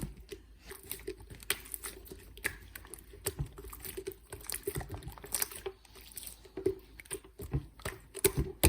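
Slime being squeezed, pressed and stretched by hand, giving a string of irregular sticky clicks and small air-bubble pops.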